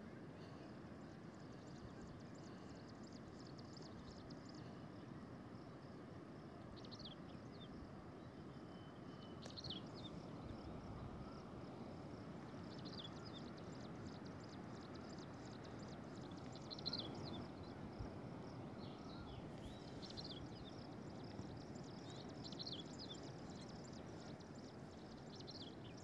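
Faint outdoor ambience: a steady low rushing hiss, with small birds giving short, high chirps now and then from about a quarter of the way in.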